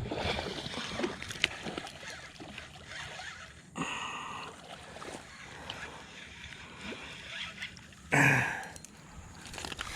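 Water splashing and sloshing mixed with scattered clicks and knocks of handling, with a louder short burst just after eight seconds.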